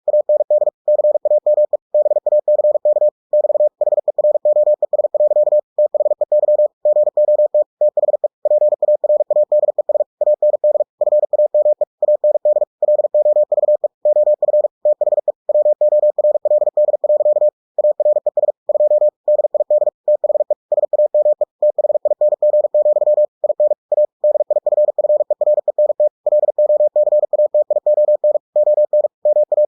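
Computer-generated Morse code (CW) sent at 45 words per minute: a single steady tone keyed on and off in rapid dots and dashes, with short pauses between words.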